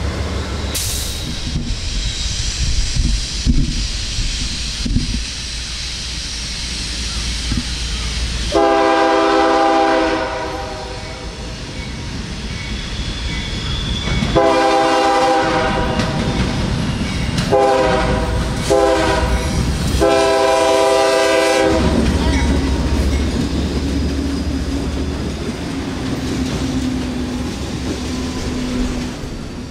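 A CSX double-stack container train rolling past with its wheels clicking over the rail joints, then a diesel locomotive's multi-note horn sounding five blasts, the first two long, then shorter ones, ending on a long one. After that comes the steady drone of the diesel locomotives' engines going by.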